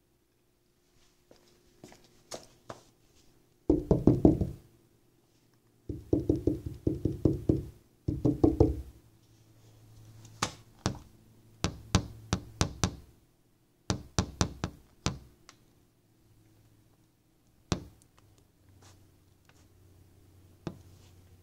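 A dog gnawing on a rubber garden hose: bursts of rapid clicking and knocking strokes separated by pauses, then scattered single clicks.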